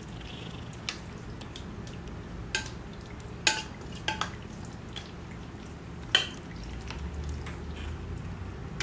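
Metal spoon stirring a thick, moist zucchini and stuffing mixture in a glass pot, the spoon clinking against the glass several times at uneven intervals, the loudest clink about six seconds in.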